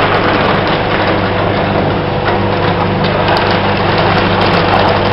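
Crystal ice-making machine running on trial: a steady mechanical hum with a constant low drone and a thin steady tone above it.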